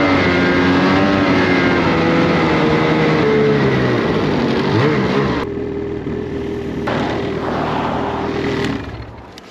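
Snowmobile engine running hard through deep powder, its pitch wavering up and down, then held steady for a few seconds before easing off near the end.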